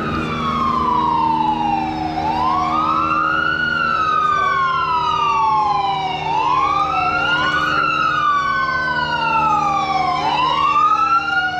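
Two sirens wailing together, each rising quickly in pitch and then falling slowly, about every four seconds, slightly out of step with each other, over a steady low hum.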